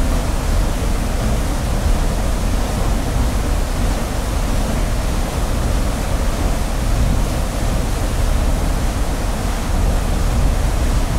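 A loud, steady rushing noise with a strong low rumble and no breaks or distinct events.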